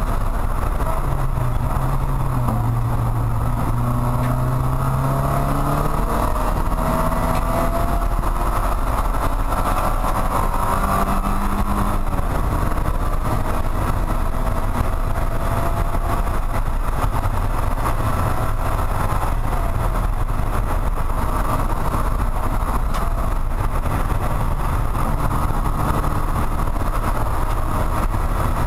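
Porsche 944 Spec race car heard from inside the cabin at speed: the four-cylinder engine running hard under load over steady wind and road noise. The engine note climbs in pitch during roughly the first twelve seconds, then holds steady.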